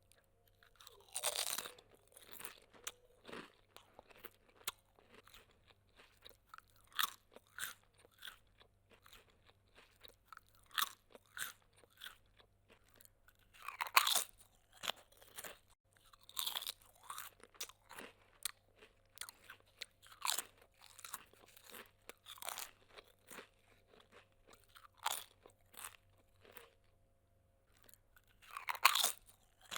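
Close-up eating of crunchy food: several louder crunching bites a few seconds apart, with quieter, irregular chewing crunches in between.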